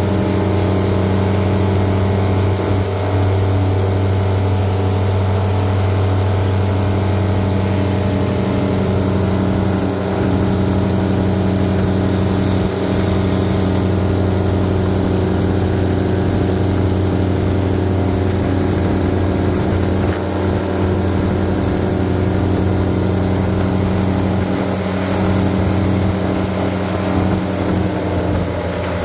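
Airboat's engine and large air propeller running steadily under way: a loud, even drone with a deep hum that holds its pitch throughout.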